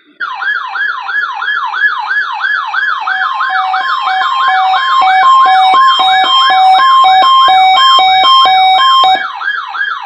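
NOAA weather alert radio receivers sounding their alert alarm, set off by the Required Weekly Test: a fast rising-and-falling siren warble about three times a second, joined about three seconds in by a beep alternating between two tones. The beeping stops about nine seconds in while the warble runs on.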